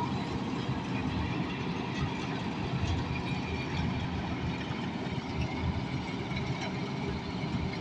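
Preet 987 4x4 combine harvester's diesel engine running steadily, with a heavy low drone.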